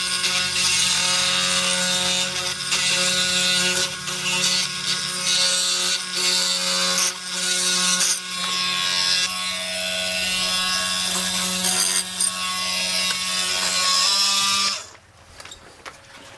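Milwaukee M18 Fuel cordless oscillating multi-tool cutting off the shims at the cabinet's edge: a steady buzz whose pitch shifts a little as the blade bites, stopping suddenly about a second and a half before the end.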